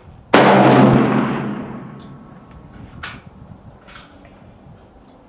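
A single rifle shot from a semi-automatic 6.5 Creedmoor AR-10-pattern rifle goes off about a third of a second in, with a long echoing tail that fades over about a second and a half. Two light clicks follow later.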